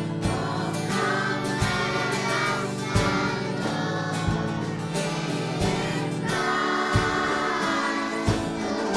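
Children's choir singing over accompanying music, with sustained bass notes and a drum beat about every second and a quarter.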